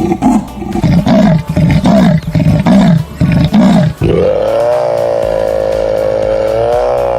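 A big cat calling: loud, pitched grunting calls about twice a second, then about four seconds in one long, drawn-out steady call.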